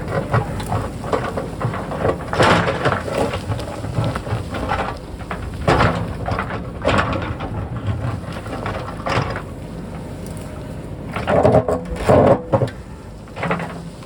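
JCB backhoe loader digging into a hillside: the diesel engine runs steadily under repeated crunching and scraping of the bucket in rock and soil. The loudest crunches come near the end.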